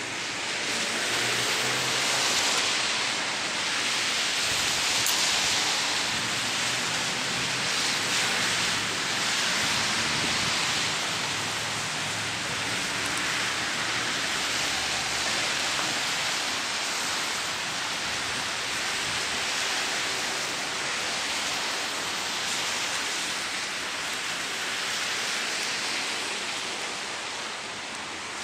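Steady hiss of rain, with a faint low rumble underneath from the diesel locomotives approaching.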